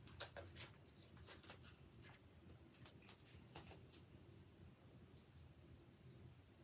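Sprinkles rattling in a small shaker jar as it is shaken out: a faint scatter of light ticks, thickest in the first four seconds.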